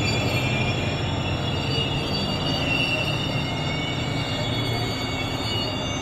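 Rovos Rail passenger train rolling through the station, with a steady rumble and high, sustained squeals from its steel wheels on the rails. The sound eases off slowly.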